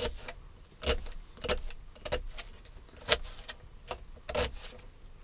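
A dull kitchen knife chopping an onion on a thin plastic cutting board: about six separate chops, unevenly spaced, each a short knock of the blade onto the board.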